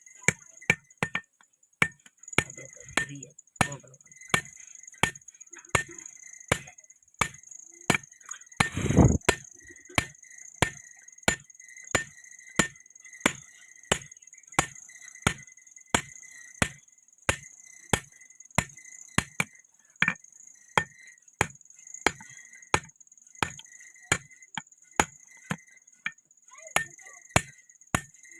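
Hand hammer striking hot steel on an anvil in a steady rhythm, about three blows every two seconds, forging a round rod into an axe head. One heavier, longer thud comes about nine seconds in.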